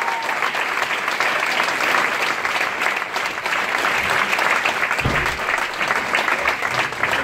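Large audience applauding, a dense, steady wash of clapping.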